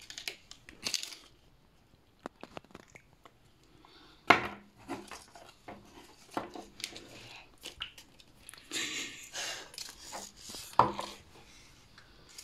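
Plastic toy packaging and a plastic slime tub being handled and opened: scattered light clicks and knocks, a rustling, crinkling stretch from about nine to ten and a half seconds in, and two sharp knocks, about four and eleven seconds in.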